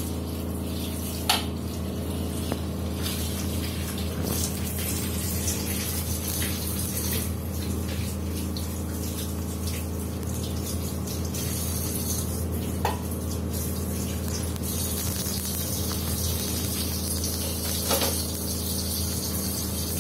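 Tap water running into a stainless steel kitchen sink while a child washes dishes, with a few sharp clinks of dishes about a second in, midway and near the end. A steady low hum runs underneath.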